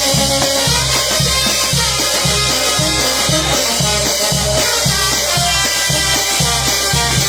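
Live Peruvian band music in an instrumental passage: sustained wind or brass lines over a steady bass-and-drum beat about twice a second.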